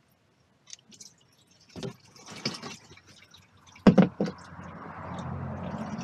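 Small metal clicks as the engine-oil drain plug is worked loose, then a sharp clunk as it comes free just before four seconds in. After that, a steady stream of used engine oil pours from the GasGas 700's crankcase into a drain pan.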